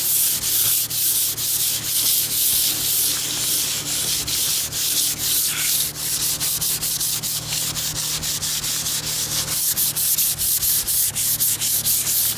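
Hand sanding a painted car hood with 400-grit sandpaper: a steady rasping hiss in back-and-forth strokes, roughly two a second. The old coat is being scuffed so the new paint can fill the fine scratches.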